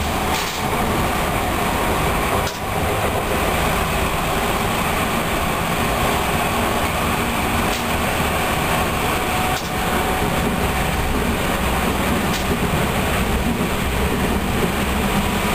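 A train running along the line, heard from its front cab: a steady rumble and rush of wheels on rails, with a few brief dips in the noise.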